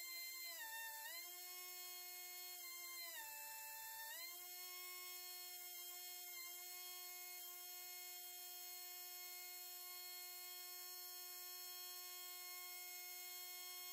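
Pencil grinder with a small stone running at high speed while grinding a lathe chuck jaw, a steady high whine. Its pitch sags twice in the first few seconds, typical of the stone taking load against the steel, then holds steady.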